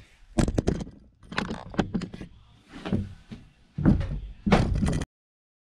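Footsteps in work boots and wooden thuds on boards and floor joists: a run of uneven knocks, the heaviest near the end. The sound cuts off abruptly about five seconds in.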